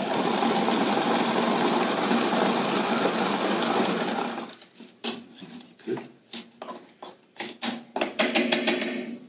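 Small food processor running steadily, chopping frozen apple pieces with egg white and sugar into a sorbet; it stops about four and a half seconds in. Irregular clicks and knocks follow as the plastic lid is taken off and a spoon works in the bowl.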